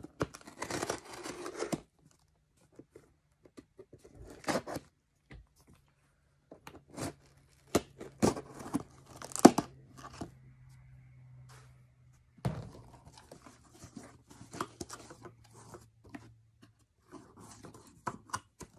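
A knife blade slitting packing tape on a cardboard shipping box, a scratchy tearing run at the start, followed by scattered sharp clicks, scrapes and crinkling as the box and its flaps are handled and opened. A faint low hum runs underneath for much of it.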